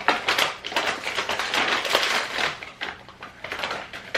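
Granulated monk fruit sugar being scooped from its bag with a measuring cup and poured into the mixing bowl: a dense, dry rustling and crackling that dies down near the end.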